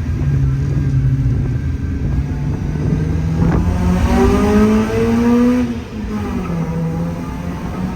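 Car engine running steadily, then rising in pitch as it accelerates for about two seconds before easing back down.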